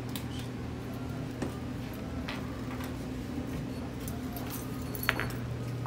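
Indoor room tone of a restaurant: a steady low hum with a few short, light clicks and taps, the sharpest about five seconds in.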